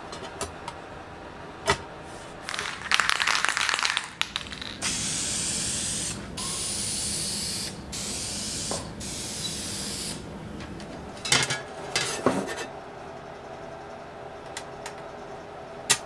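Aerosol spray can sprayed in four hissing bursts of about a second each with short gaps between them. Before it comes a second or so of scratchy rattling, and a few sharp knocks follow.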